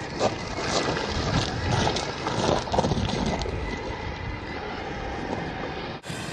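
Slowed-down field audio of a Traxxas E-Revo VXL brushless electric RC monster truck crashing and tumbling on gravel: a low, drawn-out rumble of wind on the microphone with a few dull knocks from the truck hitting the ground, loudest in the first three seconds.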